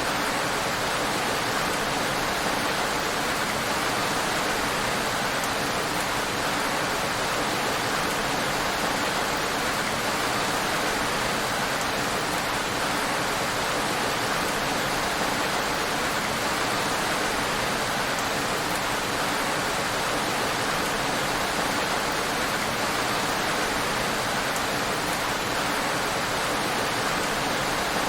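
Heavy rain falling steadily on a road: a dense, even hiss with no single drops standing out.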